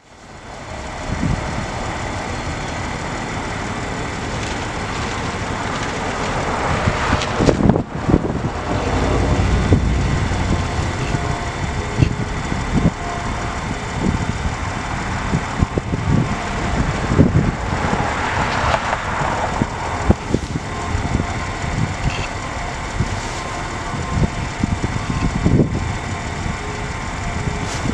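City street ambience of traffic passing. Two vehicles swell past and fade, about a quarter and about two-thirds of the way in.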